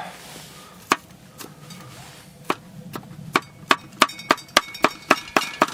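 Kitchen knife chopping food on a cutting board: a few scattered cuts, then a quicker run of strokes about three a second in the second half.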